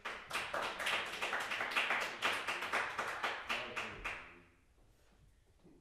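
Small audience applauding as the pianist bows, the claps clearly separate, fading out after about four seconds.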